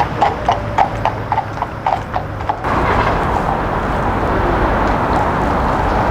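Horse's hooves clip-clopping at a walk, about four hoofbeats a second. A little over two seconds in they cut off abruptly and a steady rushing noise takes over.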